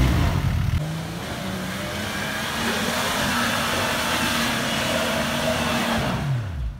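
Off-road 4x4 engine running hard at first, then settling into a steady drone with a hiss over it, its pitch dropping sharply near the end.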